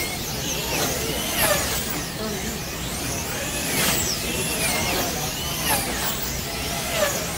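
Wing-class slot cars racing on a large multi-lane track: their electric motors whine in repeated rising and falling sweeps, one every second or so, over a steady hum of cars and room noise.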